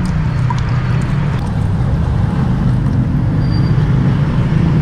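Steady low mechanical rumble, like a nearby engine running.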